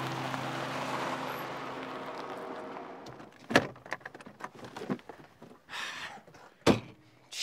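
Background music fading out over the first three seconds, then car door thuds: two sharp knocks about three seconds apart, with quieter clicks and a short rustle between them.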